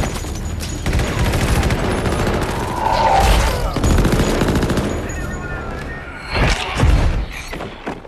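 Rapid automatic rifle fire in long bursts, with a hard hit at the start and more loud shots near the end, over a film score.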